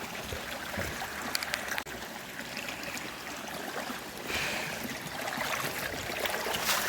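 Stream water flowing steadily, with a few faint clicks; the rush of water grows louder about four seconds in.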